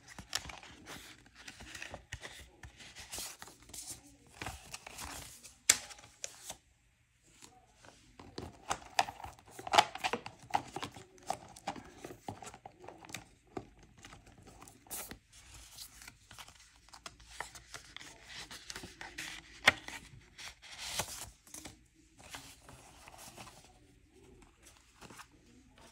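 Paper banknotes and cash envelopes being handled: bills pulled out of envelopes and flipped through for counting. The paper rustles and crinkles irregularly, with a few sharp snaps.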